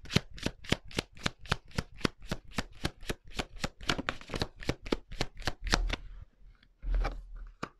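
Tarot deck being shuffled by hand: a fast, even run of card flicks, about five a second, that stops about six seconds in. A couple of soft thuds follow as a card is drawn and laid on the cloth.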